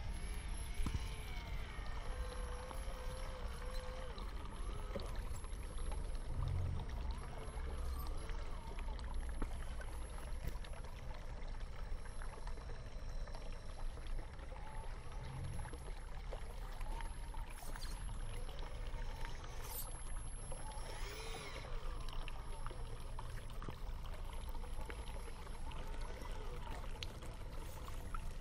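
Steady running water, a continuous pouring, trickling wash.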